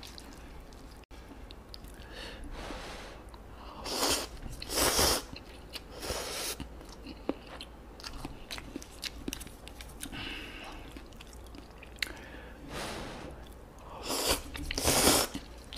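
A person eating instant kimchi ramyun noodles: chewing with small wet clicks, broken by loud slurps of noodles, a cluster of them about four to six seconds in and two more near the end.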